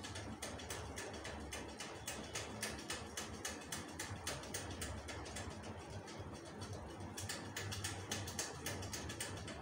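Tailor's chalk scratching and tapping on fabric as a line is marked along a tape measure: a run of quick, faint scratchy clicks, several a second.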